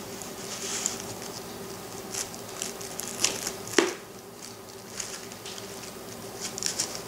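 Fingers rubbing and clicking on the hard plastic shell of an LOL Surprise ball as its two halves are twisted and pried at, a few light scrapes and clicks with the sharpest about four seconds in, over a steady faint hum.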